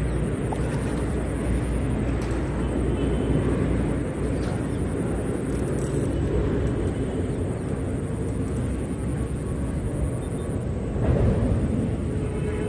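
Steady low rumbling background noise with a faint, steady high-pitched tone above it, swelling briefly louder about eleven seconds in.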